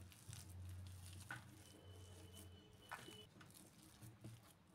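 Faint, soft patting and squishing of a hand pressing and kneading crumbly mawa (khoya) mixture on a steel plate, with a few light taps, over a faint low hum.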